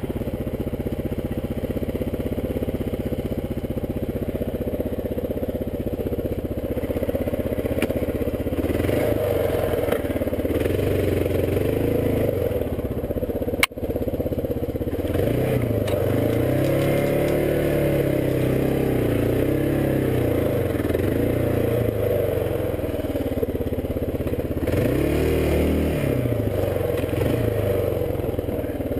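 Kawasaki KLR650's single-cylinder four-stroke engine running as the bike is ridden along a trail, the revs rising and falling several times as the throttle is opened and eased. A single sharp click with a brief dip in sound comes about halfway through.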